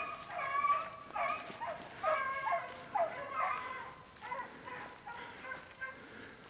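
A pack of beagle hounds baying as they run a rabbit's scent trail, several voices overlapping in short, repeated bays. The baying is loudest in the first few seconds and fades after that.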